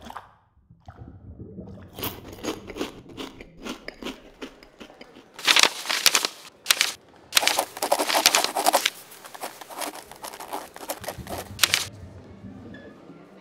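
Rapid runs of crunching and scraping noises, one stroke after another, loudest in two bursts around the middle.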